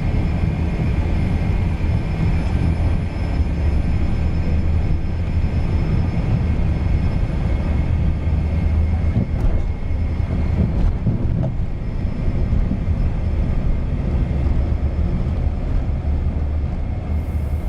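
Learjet 45XR's twin turbofan jet engines running loud and steady: a heavy low rumble with a thin, constant high whine over it.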